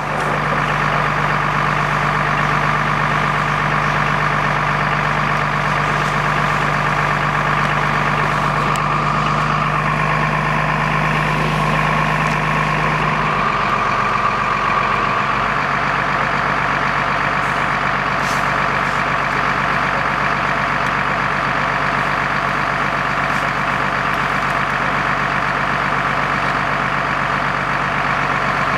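Fire engine's diesel engine running steadily with a constant low drone, its tone shifting slightly about halfway through.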